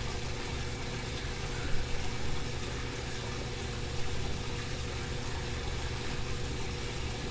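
Steady low mechanical hum with a hiss of running water: the aquaponics system's water running into the flood-and-drain grow bed while it fills toward the standpipe's siphon point. There are two faint ticks along the way.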